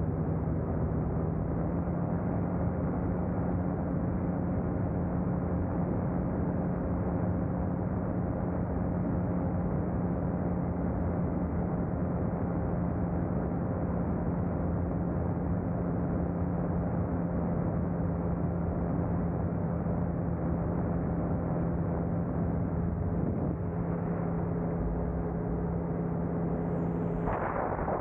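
A powered glider's engine drones steadily in flight under a constant rush of wind over the microphone, with a brief louder rush of wind noise near the end.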